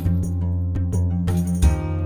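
Background music: sustained instrumental chords over a bass line, with regular percussion hits.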